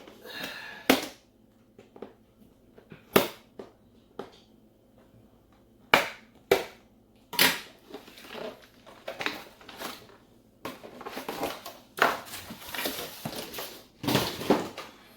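Zip ties holding an RC truck in its box being snipped: a handful of separate sharp clicks in the first half. Then longer stretches of cardboard and plastic packaging rustling and scraping.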